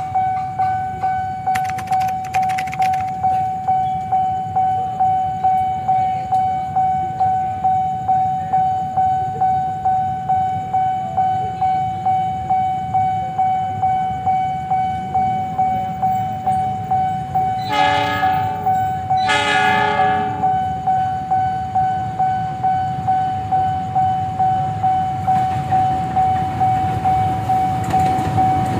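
Train rumbling by with a steady ringing tone that pulses about twice a second, and a locomotive horn sounding two blasts a little past halfway.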